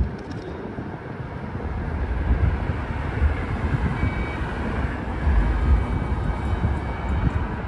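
Vehicle noise on a tram-lined road, with gusts of wind rumbling on the microphone.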